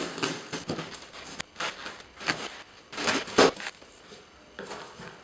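A cardboard box and its packing being handled and opened by hand: irregular rustling, scraping and crinkling with sharp knocks, loudest about three seconds in.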